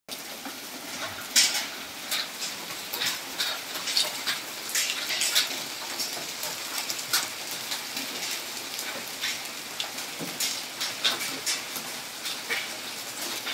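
Rain falling steadily, with many irregular sharp taps of drops landing close by.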